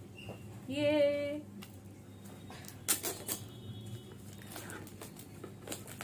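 Plastic shrink-wrap being slit with a knife and peeled off a product box: scattered crinkles and small sharp clicks.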